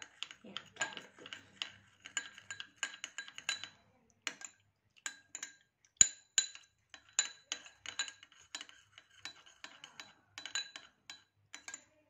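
A spoon stirring a honey mixture in a bowl, clinking against the sides many times in an uneven rhythm, each clink ringing briefly; the sharpest knock comes about six seconds in.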